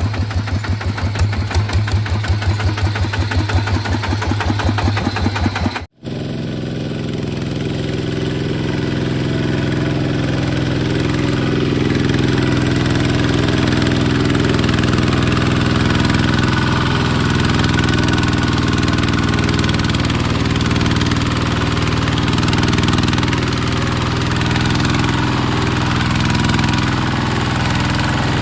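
Engine of a small Kubota bulldozer running with a rapid, even pulsing beat. About six seconds in, the sound drops out abruptly for an instant, and the engine then continues as a smooth, steady hum.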